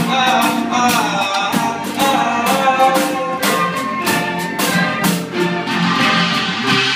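A live band playing an instrumental passage with no singing: a drum kit keeping a steady beat under guitar and a sustained melody line.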